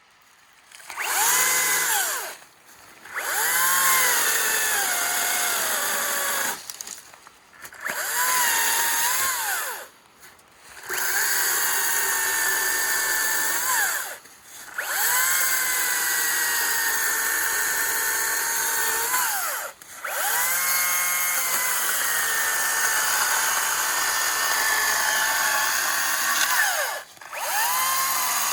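Twin-battery Makita brushless electric chainsaw run in repeated trigger pulls, about seven times: the motor and chain whine up to speed, hold, and wind down in the short gaps between, the pitch sagging a little during some of the longer runs.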